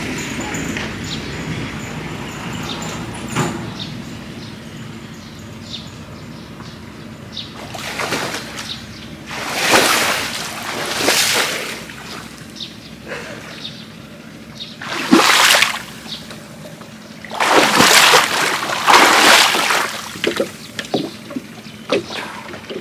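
Shallow water sloshing and splashing in several bursts as someone wades and gropes in it by hand for fish. The loudest splashes come about halfway through and again near the end.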